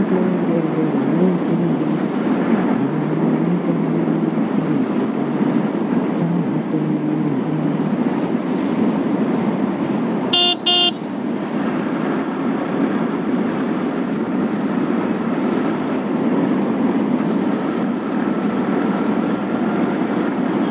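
Motorcycle engine running on the move, its pitch rising and falling in the first few seconds, over steady wind and road noise. A vehicle horn beeps twice in quick succession about ten seconds in.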